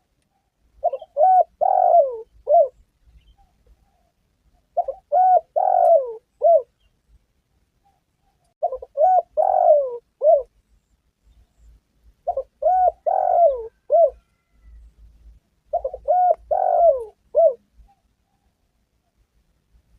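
Spotted dove (tekukur) cooing: five similar call phrases of a few rapid coo notes each, about two seconds long and repeated roughly every four seconds.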